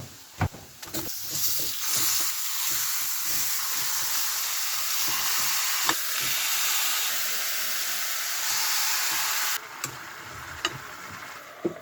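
Chicken pieces frying in hot oil with onions and spices in a pan. A loud, steady sizzle starts about a second in and cuts off sharply near the end, with a few knocks of a utensil against the pan.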